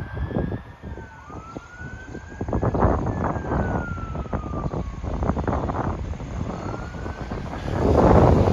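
Fire engine's two-tone wail siren sounding in slow rising and falling sweeps, over gusts of wind on the microphone; a louder rush of noise comes near the end.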